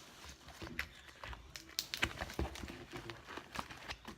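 Slime with small beads mixed in being squished and stretched by hand, giving irregular small clicks, pops and squelches.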